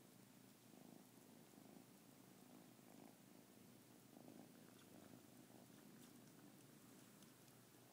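Kitten purring faintly, the low rumble swelling and easing about once a second with its breathing.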